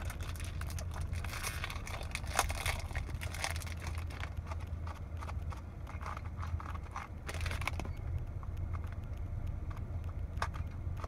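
Crinkling and crackling of plastic wrap being pulled off a small puzzle cube, then the light plastic clicks of the 2x2x3 cube's layers being turned. A steady low hum of the car cabin runs underneath.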